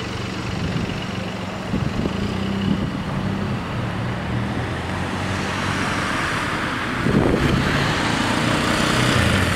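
Road traffic: car engines idling and pulling away, with a steady engine hum close by and a louder vehicle passing about seven seconds in.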